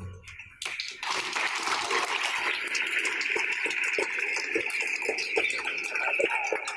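Audience applauding, a dense patter of many clapping hands that starts about half a second in and goes on steadily.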